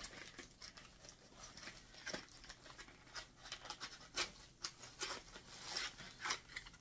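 Soft rustling and crinkling of a clear plastic bag and pink packaging as a boxed lip gloss is unwrapped by hand, heard as scattered small crackles and clicks.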